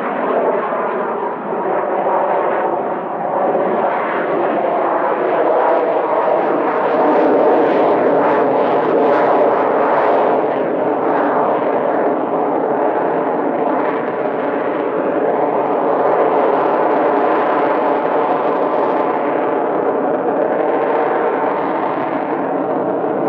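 Jet noise from the MiG-29M OVT's twin Klimov RD-33 turbofans with thrust-vectoring nozzles as the fighter manoeuvres in display flight: a loud, continuous jet sound with a steady tonal hum in it, swelling and easing a little as the aircraft turns.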